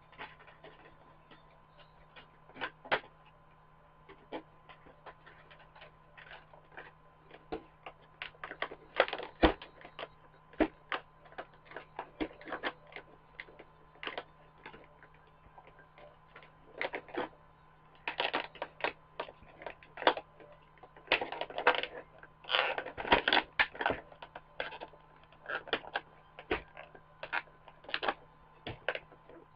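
Hands handling plastic and cardboard toy packaging: irregular clicks and taps, with bursts of crinkling rustle, over a steady low hum.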